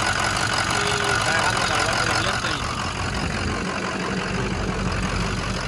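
Ford 6.0 L Power Stroke V8 diesel engine running steadily, in a truck with a cylinder 5 misfire that the mechanic puts down to low compression in the engine.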